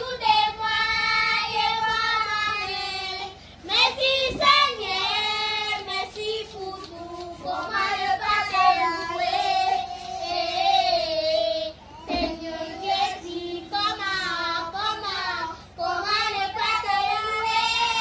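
Children singing a song, with long held notes and brief breaks about three and a half and twelve seconds in.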